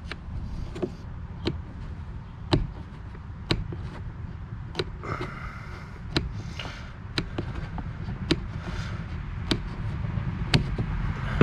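Aviation tin snips biting through a plastic bumper cover, a sharp snip-click about once a second, cutting a notch in the bumper to clear a trailer hitch.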